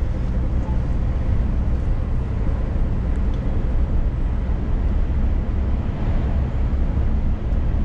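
Steady cab noise of a Scania S500 truck driving on a wet highway: engine drone mixed with tyre noise on the wet road.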